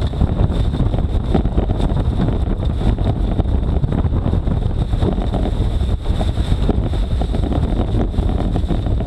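A Jeep driving through thick grass while its homemade grass cutter thrashes the grass and throws it up beside the vehicle. It is a loud, steady rush of engine and wind buffeting the microphone, with a scatter of small ticks from flying debris.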